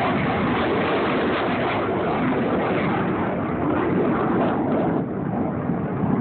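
Jet noise from the Blue Angels' F/A-18 Hornet fighter jets in flight: a steady rushing noise that dips slightly about five seconds in.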